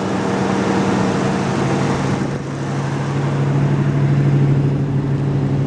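A 1968 Chevrolet Camaro's 327 small-block V8 idling steadily, with no lifter tapping or knocking. About two seconds in the idle drops to a lower, steady speed.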